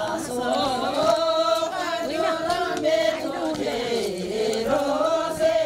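Voices singing a slow, chant-like Sherpa shyabru song, with long held notes that bend in pitch.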